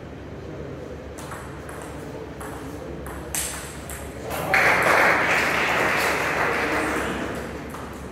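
Table tennis rally: the celluloid ball clicking off bats and table in quick alternation. About four and a half seconds in the rally ends and a loud burst of noise follows, fading over about three seconds.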